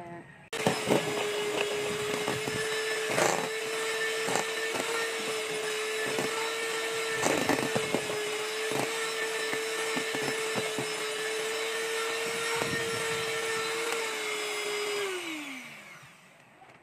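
Electric hand mixer beating thick boiled icing in a stainless steel bowl: it switches on suddenly, runs at a steady hum with irregular knocks as the beaters hit the bowl, then is switched off near the end, its pitch falling as the motor winds down.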